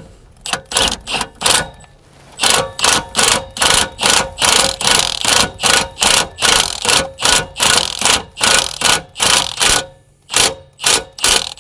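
A wrench tightening the end bolt of an aftermarket rear suspension arm: a run of short, sharp rattling bursts, about three a second, with brief pauses about two seconds in and near the end.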